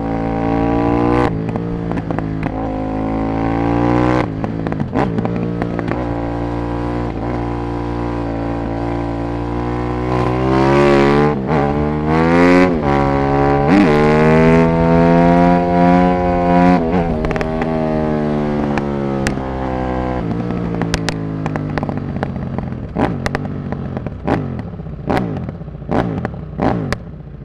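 Aprilia SXV550 supermoto's V-twin through a full Silmoto exhaust, accelerating hard through several gear changes, its pitch climbing and dropping back at each shift. It then holds a steady high-revving pull for a few seconds. Near the end it comes off the throttle and the revs fall, with a run of sharp pops and crackles from the exhaust.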